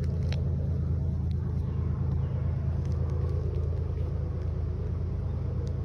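Diesel locomotives of an approaching freight train running, heard as a steady low engine rumble.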